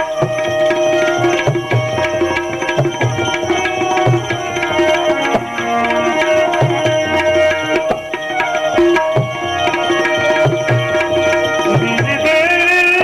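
Tabla playing a steady rhythm under held melodic notes: an instrumental interlude in a devotional bhajan.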